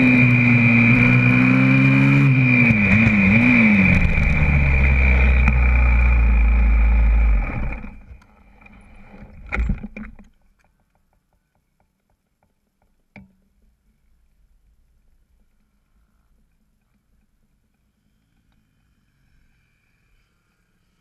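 YCF 125cc four-stroke pit bike engine running with its pitch falling and then wavering, then a heavy low rumble for a few seconds as the bike goes off the track in a crash. The engine cuts out about seven and a half seconds in, a couple of knocks follow, and then there is near silence with the bike lying against the barrier.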